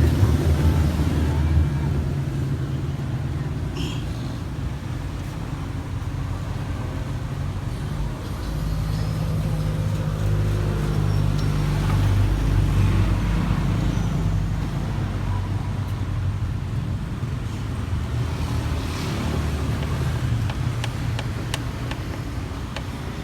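Motorcycle engine of a passenger tricycle running on the road, its pitch rising and falling a few times as it changes speed, over road and traffic noise.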